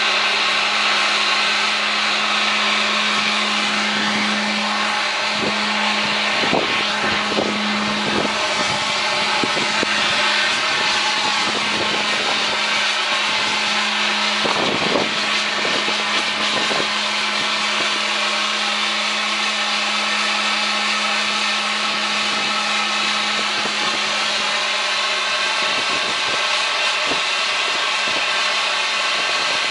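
80 HP Cleaver Brooks natural-gas-fired firetube steam boiler running on test: a steady rushing burner and blower noise with a constant low hum, and a few brief knocks about a quarter and half way through.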